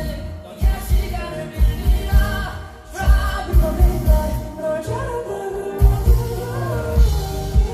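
Live band playing a song, with a sung vocal line over a steady beat.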